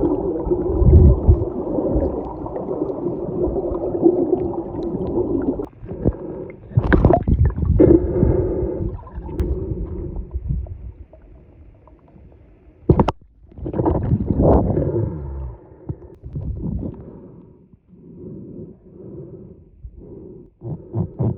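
Muffled gurgling and water movement picked up by a submerged camera, with one sharp knock about thirteen seconds in.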